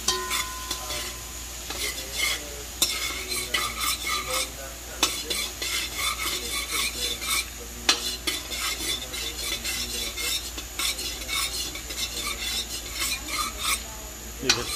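Long metal spoon stirring and scraping chopped vegetables around a large aluminium pot, with repeated short scrapes against the metal, while the oil sizzles underneath as the vegetables fry.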